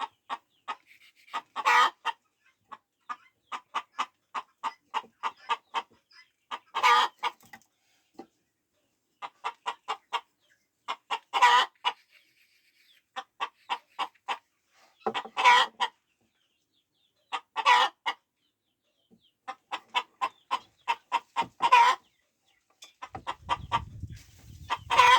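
A hen clucking in short repeated notes, about three or four a second, breaking every few seconds into a louder, longer cackle.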